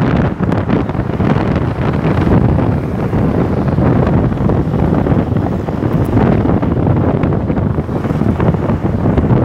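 Steady, loud wind buffeting the microphone of a phone carried on a moving scooter, a rough low rumble that rises and falls unevenly.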